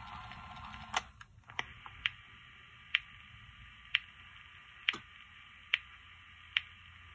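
MemoCord K70 pocket tape recorder: its faint playback hiss cuts off with a click about a second in, then a run of light clicks roughly once a second as the recorder is handled.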